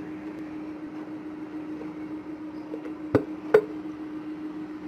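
Two sharp knocks about half a second apart, a little after halfway, as the upturned plastic glue bottle taps against the rim of the glass bowl while being emptied. A steady low hum runs underneath.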